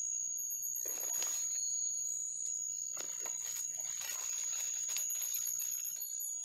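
A steady high-pitched insect buzz with short chirping trills twice, over two spells of rustling from hands working a coffee graft.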